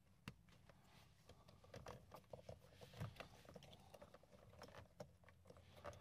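Faint handling noise: scattered light clicks and rustles of fingers working a plastic multi-pin wiring connector for the headlight switch.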